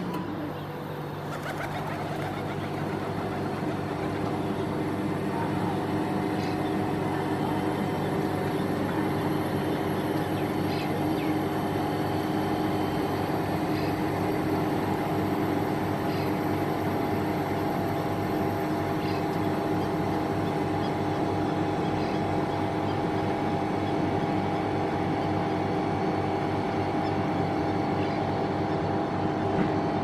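A motor running with a steady hum of several held tones, with a few faint short high chirps over it.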